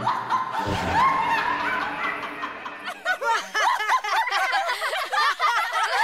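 A group of cartoon voices, children and adults, laughing together. About three seconds in it thickens into a chorus of many overlapping laughs.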